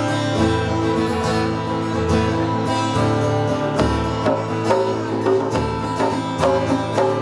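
Folk-rock band playing an instrumental intro live: guitars over a bass line, with drum and percussion hits growing more frequent in the second half.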